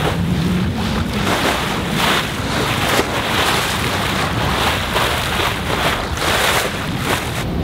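Bow wave rushing and splashing along the hull of a Sabre 36 sailboat under sail, rising and falling in surges, with wind buffeting the microphone.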